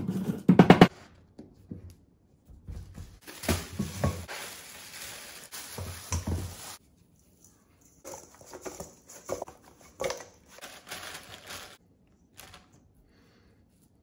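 Granite pestle pounding spices in a granite mortar, a quick run of sharp knocks, followed by several seconds of gritty grinding. Later, softer scattered knocks and rustling as the ground spice mix is tipped out of the mortar over raw chicken wings in a steel bowl.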